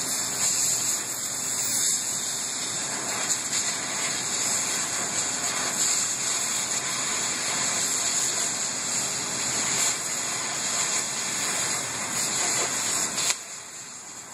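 Steady hiss of a cutting torch burning through the steel tank of a water tower, with no distinct tones in it. It drops away abruptly about a second before the end.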